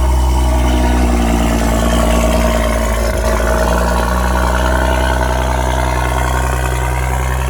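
BMW X5 engine idling steadily just after a cold start.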